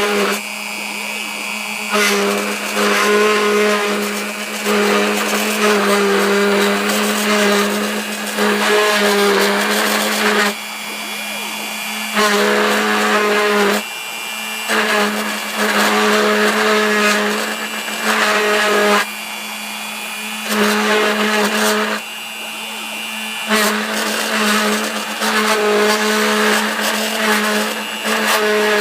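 CNC machine spindle running steadily while its cutter engraves aluminum. The cutting comes in repeated passes of a couple of seconds each, and each pass adds a louder ringing whine over the spindle's drone before dropping back between cuts.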